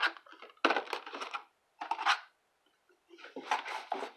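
Packaging of a new phone's box being handled and rummaged through: four short bursts of rustling and scraping with sharp clicks.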